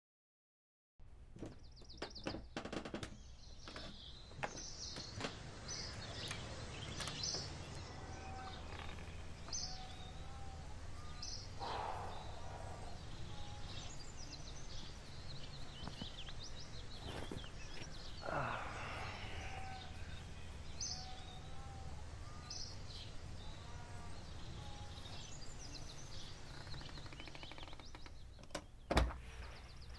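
Garden birds chirping with short, high, repeated calls over a steady low hum and scattered small clicks. A single sharp thump near the end is the loudest sound.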